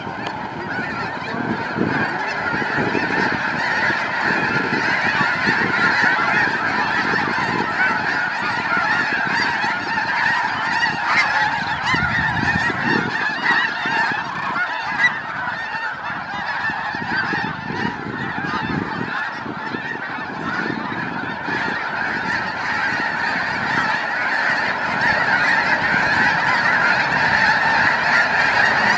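A dense, unbroken chorus of honking from thousands of snow geese as the flock takes off from the water in a mass fly-out, growing a little louder near the end.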